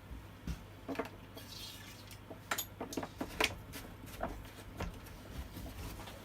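Scattered light clicks and knocks of small parts and tools being handled, with a brief hiss about a second and a half in.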